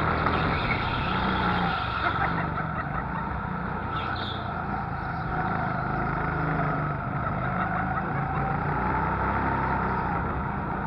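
Go-kart engine running at speed, heard on board, its pitch rising and falling as the kart accelerates and slows through the corners.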